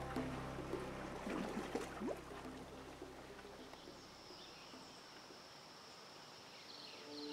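Background music fading out over the first few seconds. It gives way to faint natural ambience: a steady high hum of insects with short chirping animal calls.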